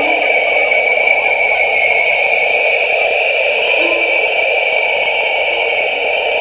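Data sonification of the Webb telescope's Southern Ring Nebula image: a steady, hiss-like synthesized drone with a few brief low notes scattered through it.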